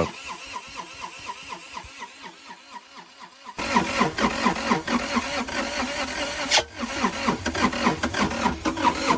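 Kubota excavator diesel engine cranking over on its starter, with a steady rhythmic pulsing, in a hard-start attempt after air was bled from the fuel lines and injectors and a little starting fluid was sprayed. About three and a half seconds in the sound jumps suddenly louder and fuller.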